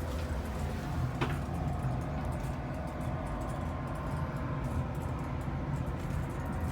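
Steady low rumble inside a moving cable-car gondola as it climbs along the cable, with one short click about a second in.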